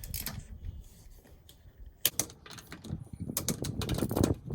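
Torque wrench, set to about 90 foot-pounds, ratcheting and clicking on a socket as a car's wheel lug nuts are tightened to spec. A sharp click comes about two seconds in, followed by a quick run of clicks near the end.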